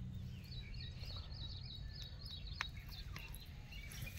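Small birds chirping repeatedly in short, high calls over a steady low rumble.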